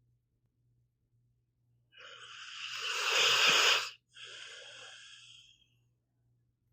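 Sleeping pit bull snoring: one long, wheezy snoring breath that builds to loud and cuts off sharply about four seconds in, followed at once by a shorter, quieter breath.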